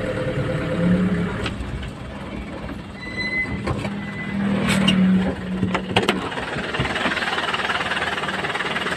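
Truck engine running and road noise heard from inside the cab while driving, with a few sharp clicks and a brief high tone about three seconds in.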